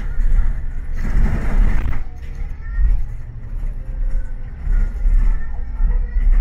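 City bus running: a steady low engine and road rumble, with a louder hiss of tyres on the rain-wet road for the first two seconds before it eases off.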